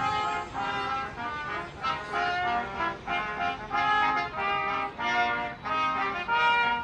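Brass band playing a tune in several parts, with the notes changing quickly.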